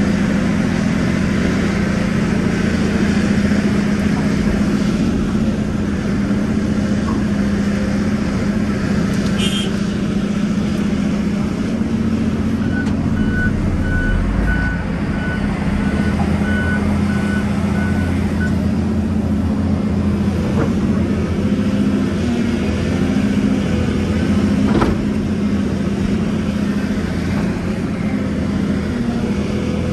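Volvo EC700 excavator's diesel engine running steadily with a low hum, heard from inside the cab as the machine digs. Midway a reversing alarm beeps in a regular series for about six seconds.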